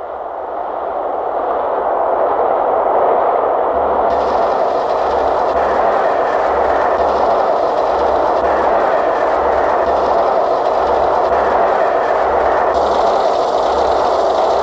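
Steady, dense rushing noise that swells in over the first couple of seconds, with a soft low thud repeating about once a second and a hiss added on top about four seconds in.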